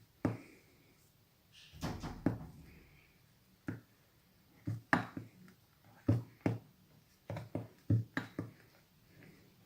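Thickening shaving-foam slime being stirred in a bowl, making about a dozen short, irregular thuds and squishes as it starts to set.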